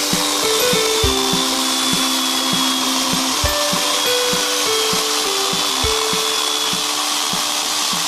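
CRAFIX 710-watt electric chainsaw cutting through a log: a steady whirring rasp of chain in wood with a faint high whine. Background music plays under it.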